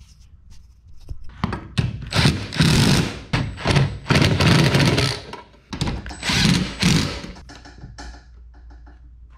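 Cordless impact driver running in several bursts of about a second each, driving fasteners for the garage door opener's ceiling mounting brackets, with lighter metal clicks between and after.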